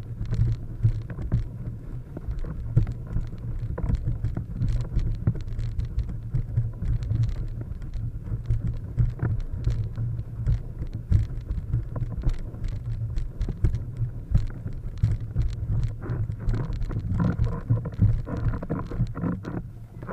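Wind buffeting the microphone of a camera mounted on a planing windsurf rig, with many irregular taps and patters of spray and water hitting the camera housing as the board crosses choppy water.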